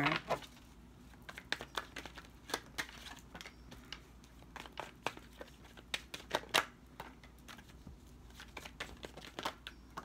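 Tarot cards being shuffled and drawn by hand: a run of irregular short clicks and snaps of card stock.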